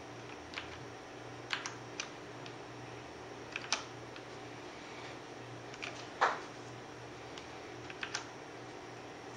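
Ducky Shine 2 mechanical keyboard with Cherry MX Clear switches and thin PBT keycaps, its keys pressed one at a time or in quick pairs with irregular gaps, each stroke a sharp clack. The loudest stroke comes about six seconds in, and a faint steady hiss and hum runs underneath.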